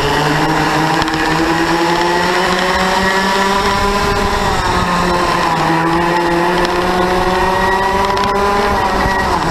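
A Yamaha KT100 two-stroke kart engine racing at full throttle, heard onboard. Its pitch climbs steadily, dips briefly about halfway through as the throttle is eased, climbs again, and falls off right at the end.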